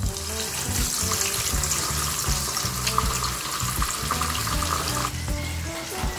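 Butterflied milkfish (bangus) sizzling in hot oil in a frying pan as it is laid in, a steady crackling hiss that stops about five seconds in, over background music.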